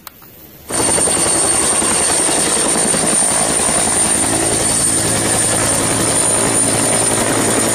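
Helicopter hovering low, starting under a second in: a steady rotor beat with a constant high whine over it.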